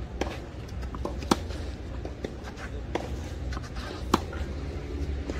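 Tennis rally on a clay court: a run of sharp racket-on-ball strikes about every second or so, the loudest about a second in and again just after four seconds, with fainter ball bounces between.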